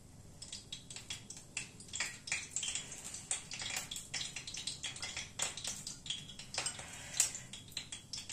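Cooking oil poured into a hot karahi, with irregular small crackles and pops as it meets the hot metal.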